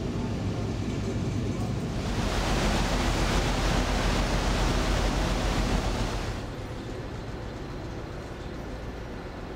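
Steady low hum of a ferry's engines, with a louder rush of wind and sea from about two seconds in. The rush drops away suddenly about six seconds in, leaving the engine hum on its own.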